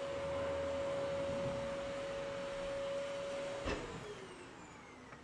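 A steady hum from an electric appliance's motor that is switched off with a click about two-thirds of the way in, then spins down in falling pitch.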